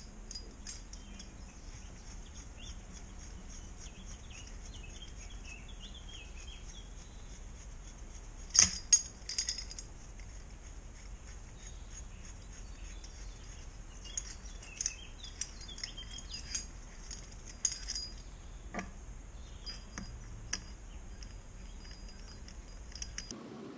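Metal clinks and taps of a crankcase-splitter tool being handled and positioned on a Honda NSR 125 R engine's crankcase: two loud clinks about a third of the way in, then a scatter of lighter clinks.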